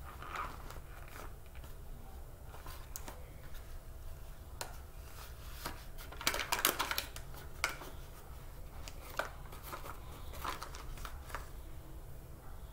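Plastic bag crinkling and rustling as it is handled, with scattered small clicks and a louder stretch of crinkling about six to seven seconds in.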